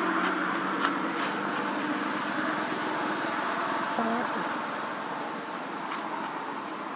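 Steady outdoor background noise, with a faint click about a second in and a faint short gliding call about four seconds in.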